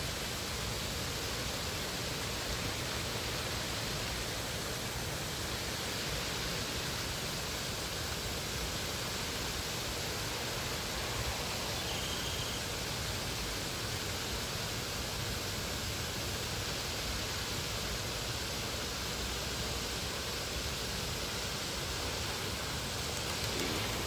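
A steady, even rushing noise with no speech, unchanging in level throughout.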